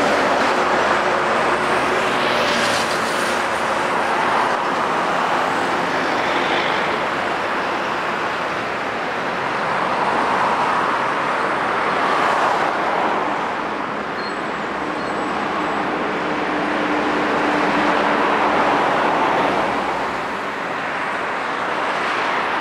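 Busy highway traffic: trucks and cars passing one after another, the noise swelling as each goes by and easing between them.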